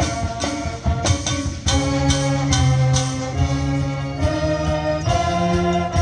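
High school marching band playing, with brass holding sustained chords that change every second or so and percussion hits cutting through.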